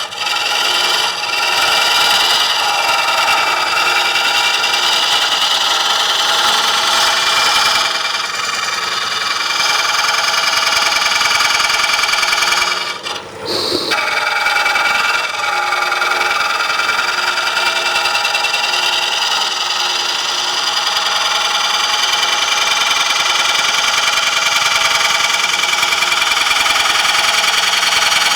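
Turning tool cutting a spinning green-wood bowl blank on a lathe, a continuous rasping cut over the running lathe, truing up the out-of-round blank. The cut breaks off briefly about halfway through, then carries on.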